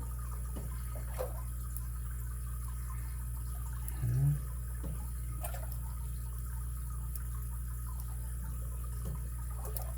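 Faint clicks and scrapes of a lock pick working the pins of a Schlage SC1 five-pin lock under tension, over a steady low hum. A brief voiced hum comes about four seconds in.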